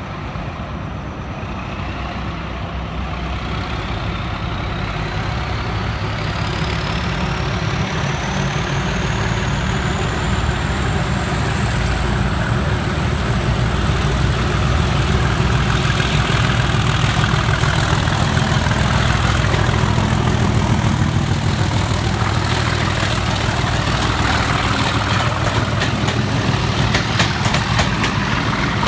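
Class 37 diesel locomotive's English Electric V12 engine working hard at full power as it pulls away, growing steadily louder as it approaches. Its turbocharger whistle rises in pitch for about twelve seconds, then holds high. Near the end come rapid clacks of wheels over rail joints.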